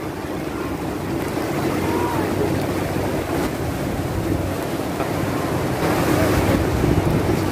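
Heavy rain pouring down and rainwater surging up through an underground drain's cover, a steady rush of water. The drain is overwhelmed: the water is under so much pressure that the cover looks ready to lift.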